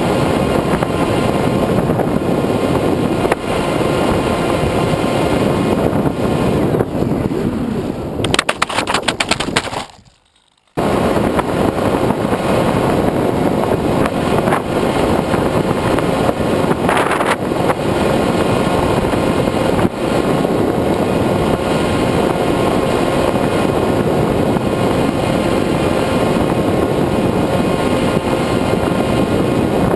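Electric motor and pusher propeller of a Bixler 1.1 foam model plane running steadily, heard from the onboard camera with a steady whine over wind noise. About eight seconds in comes a couple of seconds of fast, even clicking, then the sound drops out for under a second before the motor noise returns.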